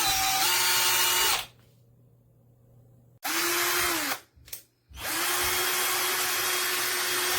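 12V cordless drill motor running in bursts. It runs for about a second and a half and stops, runs briefly again about three seconds in, winding down as it stops, blips once, then runs steadily from about five seconds in.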